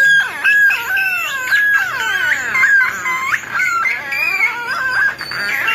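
Homemade electronic noise machine making high squealing tones that hold a steady pitch, then swoop down and back up again and again.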